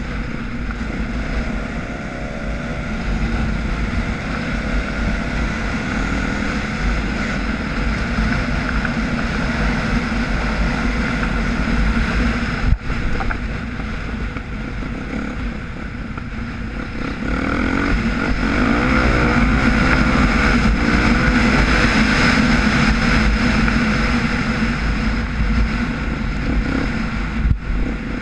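Dirt bike engine running under way, heard from the rider's camera with wind buffeting the microphone; about two-thirds through it gets louder as the revs climb, and there is a single sharp knock near the middle.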